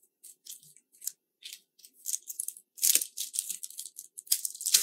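Clear plastic packaging sleeve around a paper user manual crinkling and rustling as hands handle it, in short rustles that grow louder over the last two seconds.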